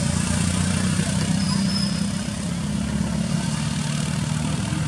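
A motor vehicle engine idling, a steady low hum.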